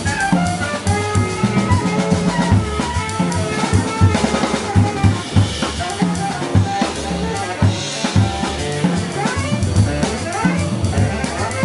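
Live small-group jazz with the drum kit to the fore: busy snare, rim and bass-drum hits with cymbals, over walking upright bass and piano.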